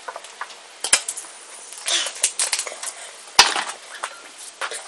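Someone drinking Coke: small clicks and swallowing sounds with knocks from the drink's container. There are sharper knocks about one, two and three and a half seconds in, the last the loudest.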